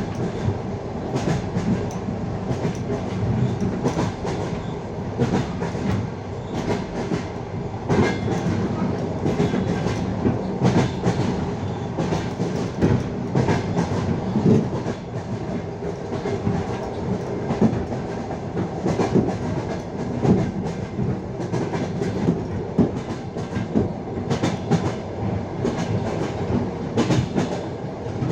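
Wheels of a passenger train clicking over the rail joints at speed, repeated clacks over a steady rumble of the carriage.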